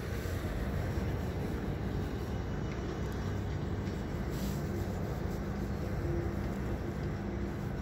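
Steady low rumble of outdoor background noise with a faint steady hum.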